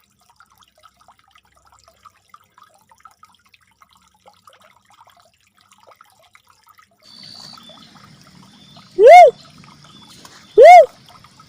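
Two loud, short whooping calls of an uncal merah cuckoo-dove, each note rising then falling in pitch, about one and a half seconds apart near the end, after several seconds of near quiet with faint ticks.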